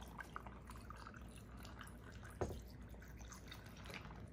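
Juice poured from a carton into a glass of ice: a faint trickle with small scattered ticks and crackles from the ice, and one sharper tick about halfway through.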